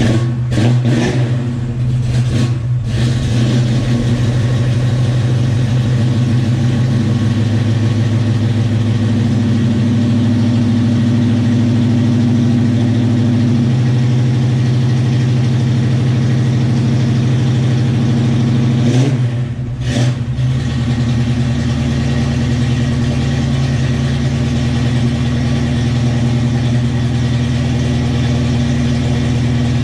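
Pontiac 400 V8 with a mild cam and Flowmaster exhaust idling just after a cold start, with one brief rev about 19 seconds in.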